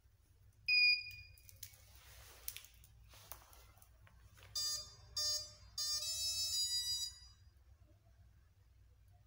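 Quadcopter's electronics beeping as its flight battery is connected: one loud, high beep, then a few seconds later the brushless motors sounding the speed controllers' start-up tones, two short and one longer.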